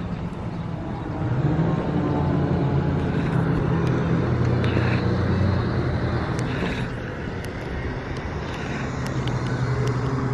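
A steady low engine drone, swelling about a second in, fading after about six seconds and returning near the end, heard outdoors with a background wash of noise.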